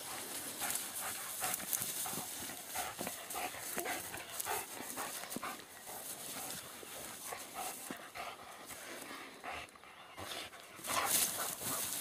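A dog moving about and making short, irregular sounds, with louder rustling near the end.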